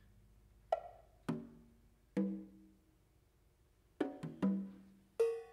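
Hand-played congas struck in single strokes spaced out unevenly, with a quick run of three about four seconds in, each drum tone ringing briefly. Near the end a small metal percussion instrument is struck once and keeps ringing.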